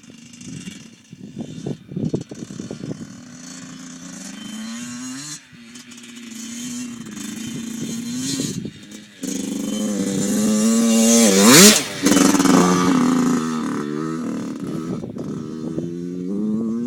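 Dirt bike engine revving, rising and falling in pitch and growing louder about halfway through, with a sharp drop and rise in revs near two-thirds of the way in.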